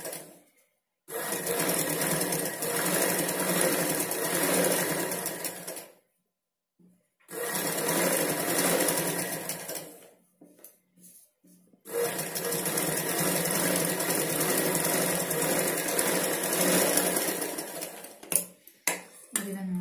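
Domestic sewing machine running steadily while stitching a seam through cotton fabric. It runs in three spells of a few seconds each and stops between them. A few sharp clicks come near the end.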